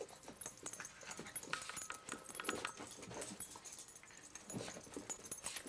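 Bulldog puppy and another small dog play-fighting: scuffling with short dog noises scattered through.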